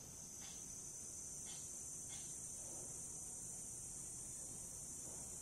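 Steady high-pitched insect trill in the background, with a few faint short sounds in the first half.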